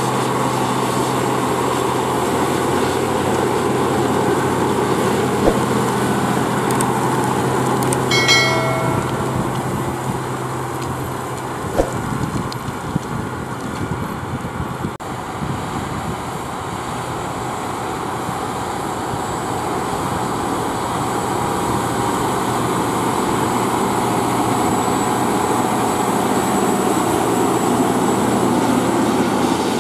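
Case IH Quadtrac 620's six-cylinder Cummins diesel running under load as the tracked tractor pulls a Horsch Tiger disc cultivator through stubble, with the clatter of tracks and discs in the soil. The sound eases off somewhat around the middle and grows louder again near the end as the tractor comes closer. A short high squeal comes about eight seconds in, and a sharp click a few seconds later.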